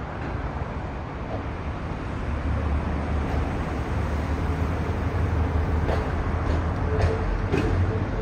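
New subway cars on temporary transport bogies rolling slowly over the rails under a diesel locomotive's push, with a low rumble that builds, a few clanks about six to seven and a half seconds in, and a steady wheel squeal that starts near the end.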